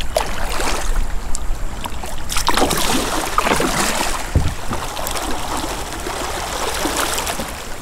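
A kayak being paddled through shallow river water: irregular paddle splashes over a steady rush of water.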